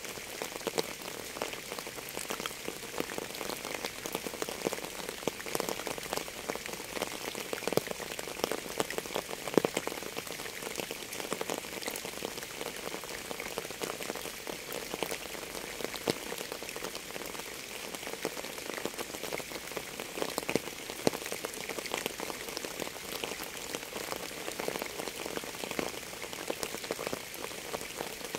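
Steady rain: an even hiss thick with individual drops striking close by, at a constant level.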